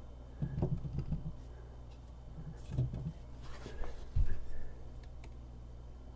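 Handling noise: a few light knocks and rattles as things are moved about by hand, with a duller thump about four seconds in.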